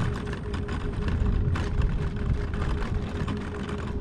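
Vehicle engine and road noise heard from inside the cab while driving: a steady low rumble with a constant hum, and light rattling throughout.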